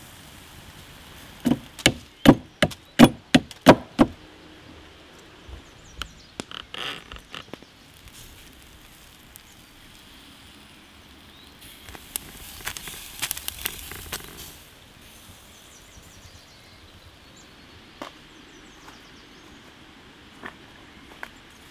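A run of about seven sharp chopping strikes, roughly two a second, followed by a few lighter knocks; later a few seconds of crackling, then a quiet outdoor background with the odd click.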